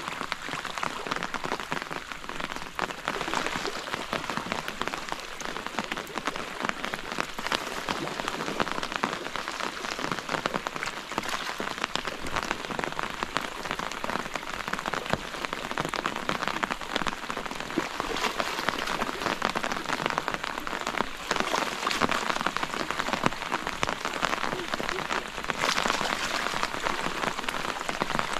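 Steady rain falling, a dense mass of individual drops ticking on surfaces close by, a little heavier in the second half.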